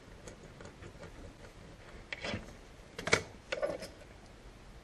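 A small rubber piece of a motorcycle mount kit being trimmed: light ticks and handling clicks, then three sharper cutting snips about two, three and three and a half seconds in.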